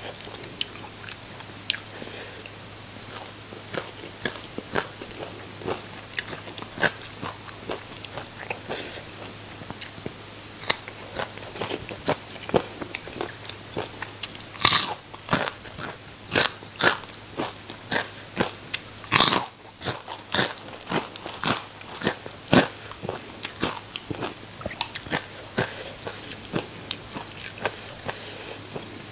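Close-miked mouth sounds of someone biting and chewing crispy deep-fried fish with roe: irregular sharp crunches and wet chewing clicks, a couple of louder crunches about halfway through, over a faint low hum.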